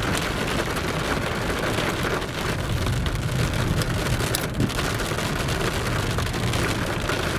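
Heavy rain pattering on a car's roof and windscreen, heard from inside the cabin during a thunderstorm, with a steady low rumble underneath.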